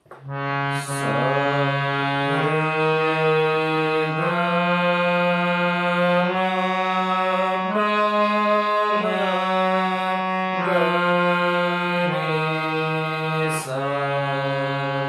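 Harmonium reeds sounding a sargam scale in held notes, about nine notes that climb to a top note midway and come back down (sa re ga ma pa ma ga re sa). This is the softer of two renditions at the same pitch.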